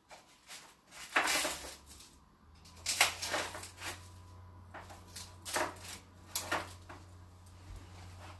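Microwave oven starting up and running with a low, steady hum from about a second in, with a few sharp clicks and knocks over it.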